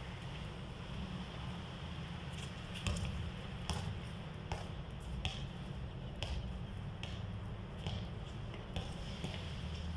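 Basketball being dribbled on a concrete court: sharp bounces about one a second, starting about three seconds in, over a steady low rumble.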